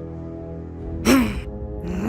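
Background music holding sustained chords, with a short vocal sigh from a cartoon character about a second in.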